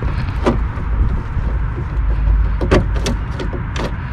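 Scattered metal clicks and knocks from a power window motor and regulator assembly being worked loose inside a car door: one click about half a second in, then several sharp ones in the second half, over a low steady rumble.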